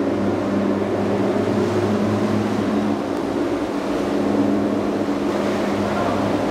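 A boat engine running steadily with an even low drone, over the rush of churning inlet water.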